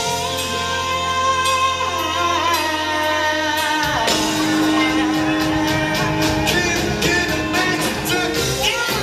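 Live pop band and vocal group performing: a held sung note over guitar, bass and drums, with the band shifting to a new beat about four seconds in.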